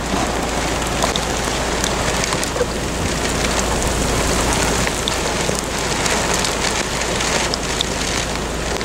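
Steady hiss of rain and wind heard through an open car window, with scattered raindrop ticks.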